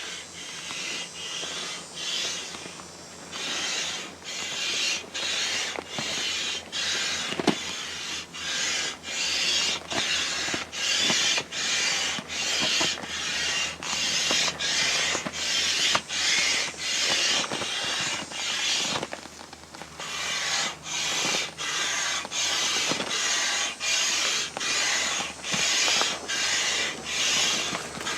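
Manual air pump inflating a soft vinyl inflatable toy: a steady rhythm of hissing strokes, a little over one a second with short breaks between them, and the vinyl creaking now and then.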